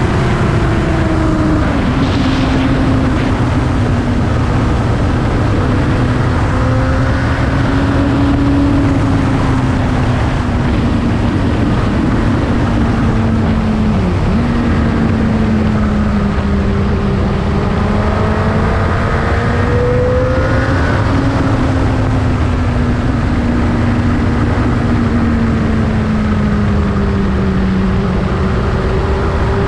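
Motorcycle engine running under way, its pitch rising and falling with the throttle, with a brief sharp dip about halfway through, over a steady low rush.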